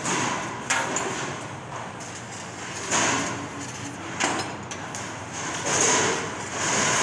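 Laser cutting machine cutting a decorative pattern in steel sheet: hissing rushes of cutting and assist gas that start sharply and die back several times as the head pierces and traces each shape.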